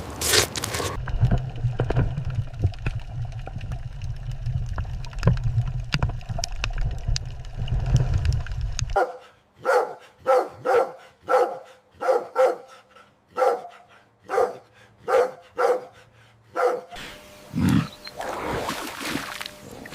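A low rumbling noise with scattered clicks, then a dog barking in a run of short, evenly spaced barks, about two a second.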